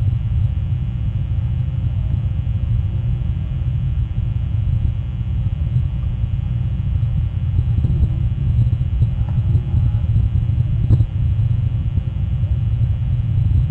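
Steady low rumble picked up by an outdoor wildlife webcam's microphone, with a faint click about eleven seconds in.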